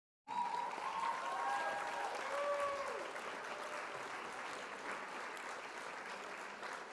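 Applause starting suddenly, with a few whistle-like or cheering glides in the first few seconds, then tapering off.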